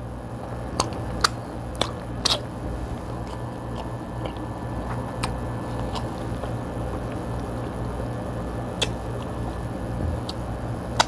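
Eating a king crab seafood boil: a few sharp clicks in the first couple of seconds as pieces are picked over in the plastic bowl, then biting and chewing. A steady low hum runs underneath.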